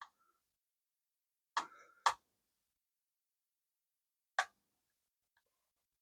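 Sharp clicks and knocks from small plastic parts and tools being handled during a stun gun teardown: a faint one at the start, two louder ones about a second and a half in, and another one at about four and a half seconds, with near silence in between.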